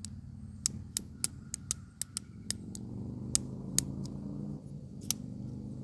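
A series of about a dozen sharp, irregularly spaced clicks from handling the Ozark Trail folding knife, over a steady low hum.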